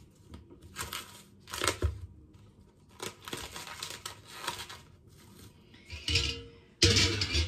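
A series of short tearing and crinkling sounds, about six in all, as mushrooms are handled and prepared with a knife for cooking. The last burst, near the end, is the loudest.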